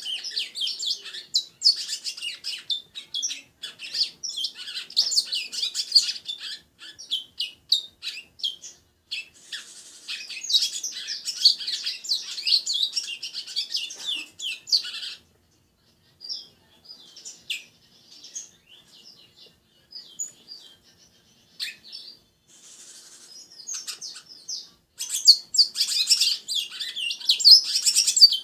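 Caged songbird, a 'congo', singing long runs of rapid high chirping notes. It goes sparse about halfway through, with only scattered notes, then picks up into dense song again near the end.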